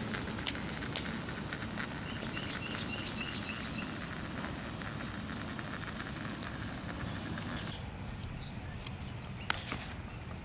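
Canister gas camp stove hissing under a small stovetop coffee maker as it brews into a mug, with light sputtering clicks and a quick run of faint high chirps about three seconds in. A little before the end the hiss stops, leaving a quieter campfire bed with a few faint crackles.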